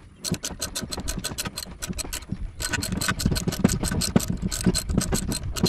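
Socket-wrench ratchet clicking rapidly, about eight clicks a second, as it is worked back and forth to loosen a nut on the carburetor of a Homelite backpack blower.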